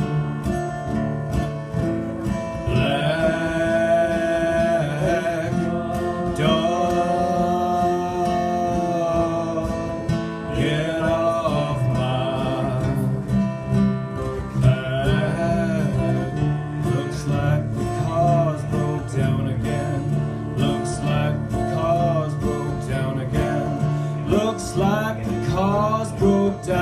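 Acoustic guitars strummed live in a steady country-style accompaniment, with a man singing long wordless held notes that waver and jump in pitch, yodel-style, over the top.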